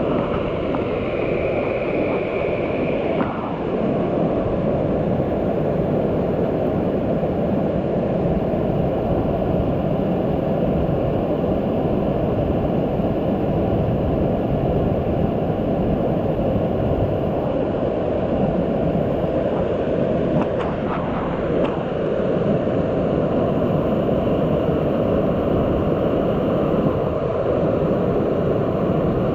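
Rushing water of a mountain stream in high flow: a steady, loud, even rush that holds throughout. A brief high tone sounds over it a second or two in.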